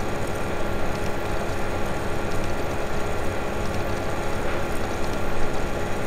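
Steady hiss with a faint low hum underneath, unchanging throughout: background noise of the recording, with no speech.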